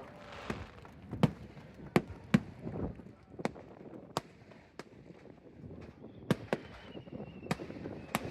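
Fireworks bursting: about a dozen sharp cracks at uneven intervals, with a faint thin whistle around six seconds in.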